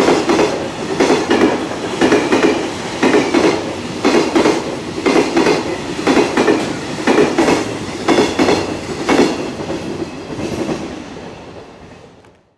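Container flatcars of a passing freight train clattering over rail joints, with clusters of wheel clicks about once a second over a steady rolling rumble. The sound fades out near the end.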